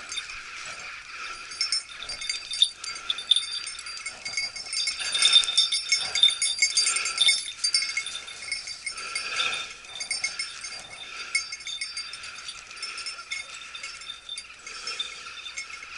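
A hunting dog's collar bell jingling continuously and unevenly as the dog moves through the scrub, swelling louder around the middle. This is the bell used to track a pointing dog hidden in cover.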